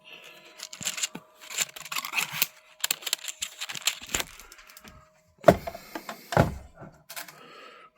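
Hands handling a filament spool and the Bambu AMS while loading filament: a run of irregular clicks and rustles, then two heavier thumps about five and a half and six and a half seconds in.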